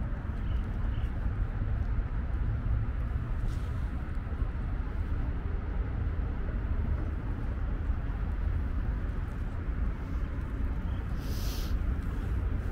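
Outdoor city ambience: wind rumbling steadily on the microphone over a faint, even hum of distant traffic. A short high-pitched hiss comes near the end.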